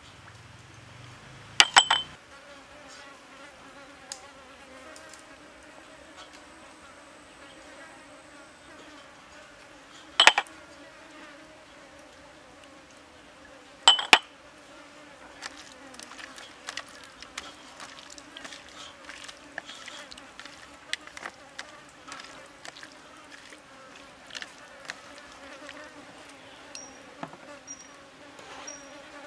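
Insects buzzing in a steady drone. Three sharp clinks of small ceramic cups being set down, about 2, 10 and 14 seconds in, are the loudest sounds. Later come light clicks and rustles of hands working.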